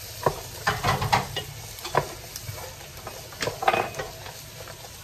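Sliced carrots with onion and garlic sizzling in hot oil in a pot while being stirred with a spoon: irregular scrapes and knocks of the spoon against the pot over a steady sizzle.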